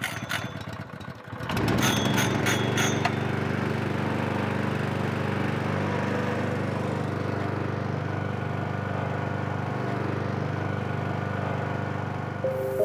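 The small engine-driven pump of a ute-mounted fence line sprayer running steadily. It picks up sharply about a second and a half in, with a few light clicks before that.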